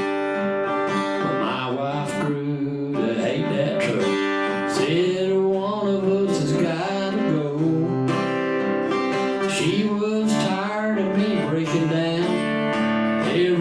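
Acoustic guitar strumming a country song, with a singing voice over it.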